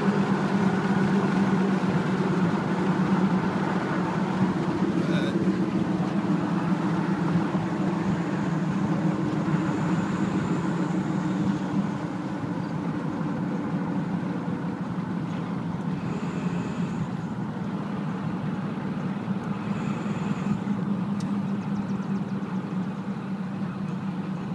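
Straight-piped 7.3-litre Power Stroke turbo-diesel V8 of a 1996 Ford F250 running under way, heard from inside the cab as a steady drone that eases off slightly about twelve seconds in.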